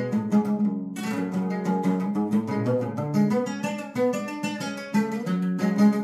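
Solo bandola, the small Colombian Andean lute with paired strings, playing an instrumental passage of rapid picked notes and chords.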